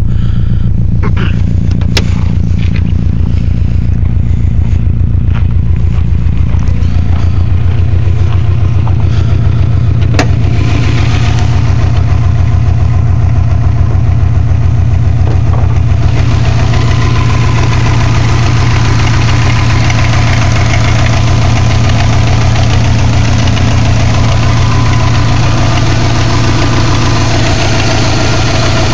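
2002 Subaru WRX's 2.0-litre turbocharged flat-four engine idling steadily, with a grinding noise that becomes harsher and more prominent about halfway through. The grinding comes from the top of the cylinder 1 and 3 head, and the owner suspects the left-side timing belt tensioner.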